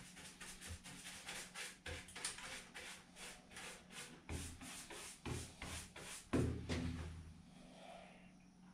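A paintbrush scrubbing paint onto a wooden shelf in quick, rhythmic strokes, about three or four a second. About six seconds in comes a louder knock.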